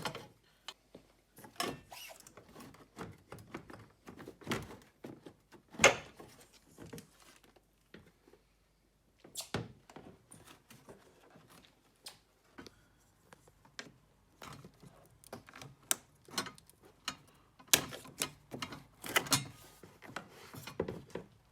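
Plastic trim panel being pried off a car headlamp assembly with a pry tool: irregular plastic clicks, knocks and scrapes, with a sharp snap about six seconds in and a quick run of clicks near the end.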